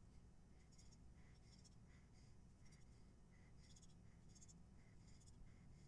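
Near silence with faint, repeated scratchy rubbing of nylon paracord sliding through a monkey's fist knot as the slack is worked through to cinch it tight.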